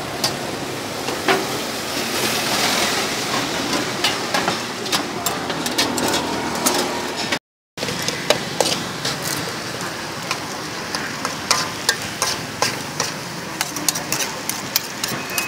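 Steady street-stall noise, then, about halfway through, a metal spoon clinking and scraping against a steel wok many times as corn kernels are stirred in it.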